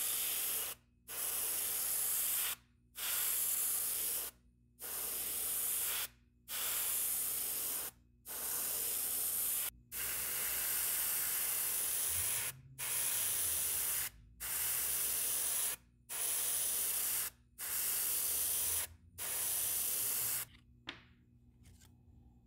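Gravity-feed airbrush spraying in about a dozen bursts of one to two seconds each, with short breaks between them as the trigger is released and pressed again. The hiss stops about two seconds before the end.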